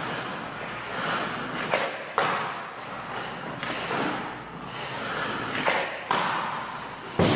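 Hockey goalie's skate blades scraping the ice in repeated swelling pushes as he shuffles and slides across the crease, with several sharp knocks of equipment on the puck and ice in between.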